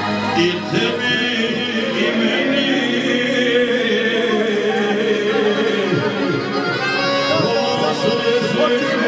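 Live folk band music over a PA, a man singing into a handheld microphone over steady held instrument notes.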